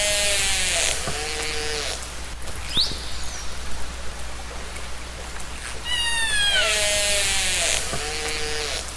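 Killer whale calls in an underwater recording over a steady hiss. Downward-sliding pulsed calls come at the start and again about six seconds in, with a short rising whistle about three seconds in.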